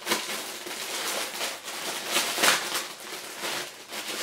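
Clear plastic wrapping crinkling and rustling as a folded fabric item is handled inside it, loudest about two to two and a half seconds in.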